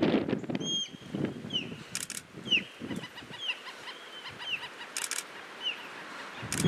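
Osprey fledgling giving a series of short, high, down-slurred whistles about once a second, begging to be fed. Gusts of wind rumble on the microphone underneath.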